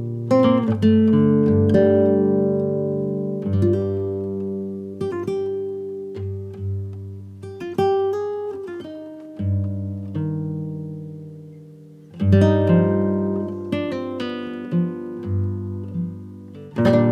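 Background music: an acoustic guitar plucking notes and chords that ring out and fade, with a fuller strum about twelve seconds in.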